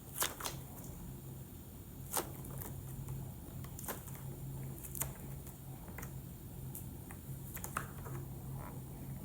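Scattered sharp pops and crackles of fireworks going off, a few loud cracks among fainter ones, over a steady low hum.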